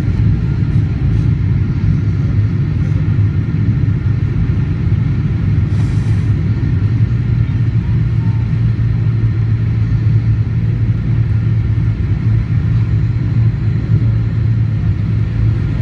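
Steady low rumble inside the cabin of a Boeing 777-300ER on descent for landing: engine and airflow noise.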